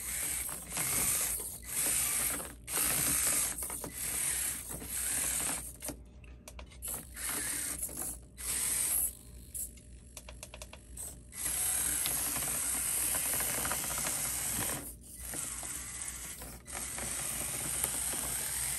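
Basher Rocksta 1/24-scale mini rock crawler's electric motor and gears running under load as it climbs rock, in stop-and-go throttle bursts with short pauses and a choppier stretch of short bursts in the middle. The drivetrain is noisy while crawling, which the owner suspects comes from a gear mesh issue at the motor.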